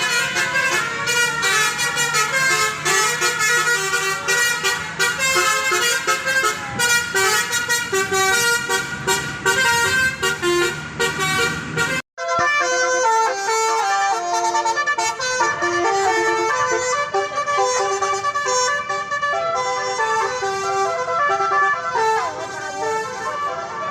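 Tour bus telolet horn playing a fast melody of stepped, multi-note tones. The sound cuts out abruptly about halfway through, then the horn melody carries on.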